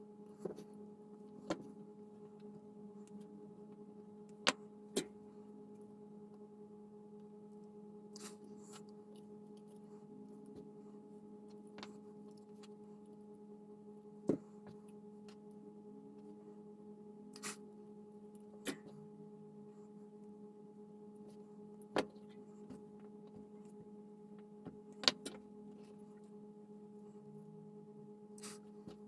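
Faint steady electrical hum, with about a dozen sharp little clicks and taps at irregular intervals from hands handling and twisting LED wires together.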